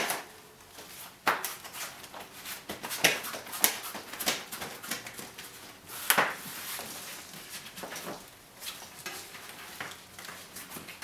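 Bicycle tire being fitted onto a hub-motor wheel's rim by hand: the rubber tire rubbing and scraping against the rim, with scattered sharp clicks and knocks about every second or two.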